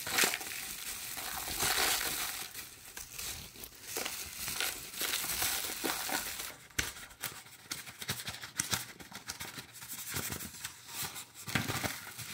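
Paper funnel crinkling and rustling in the hand as propolis shavings are tipped through it into a glass jar of rakia, with irregular small taps and scrapes.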